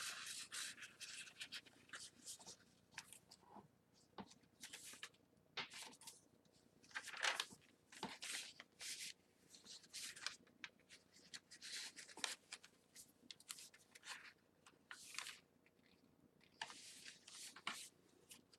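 Paper rustling and crinkling as the journal's old book pages, tags and pockets are handled and turned, in short, irregular scrapes spread throughout.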